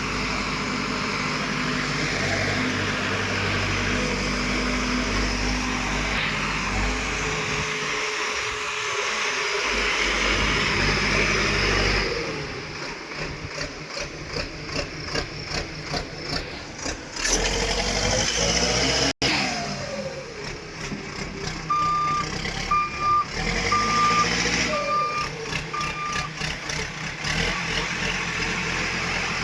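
Heavy earthmoving machinery engines running, with several abrupt changes where the footage is cut. About two-thirds of the way through, a reversing alarm beeps about five times over the engine sound.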